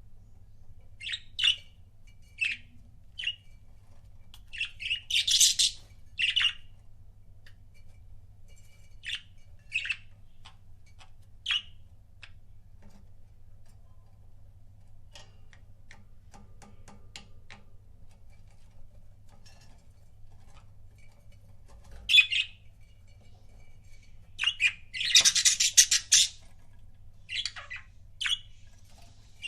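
Pet budgerigars chirping and squawking in short spells of quick high calls, loudest twice, with a quieter stretch of about ten seconds in the middle.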